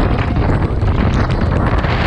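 Strong gusting wind buffeting the camera's microphone, a loud, continuous low rumble of wind noise.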